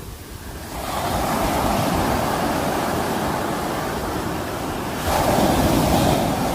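Sea waves washing ashore. A surge of surf builds about a second in, and a second, louder wave breaks about five seconds in.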